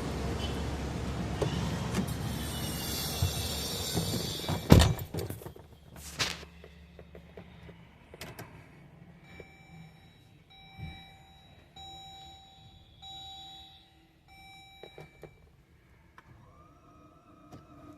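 A 2011 Jeep's cabin: a steady rushing noise for the first few seconds, a sharp thunk about five seconds in, then a string of about five electronic chime tones a second or so apart, with no engine running. The vehicle won't start.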